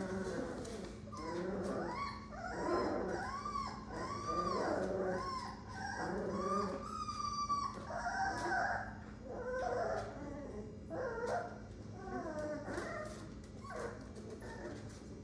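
A litter of month-old American Pit Bull Terrier puppies whining and yipping: many short, rising-and-falling cries overlap one another, dying down near the end.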